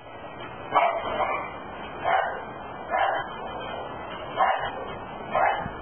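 A dog barking repeatedly, about five barks roughly a second apart.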